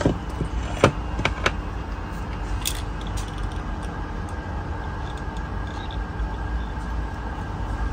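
A few light metallic clicks in the first second and a half, and one more a little later, from crimping a steel sleeve onto a speargun's shooting line, over a steady low background hum.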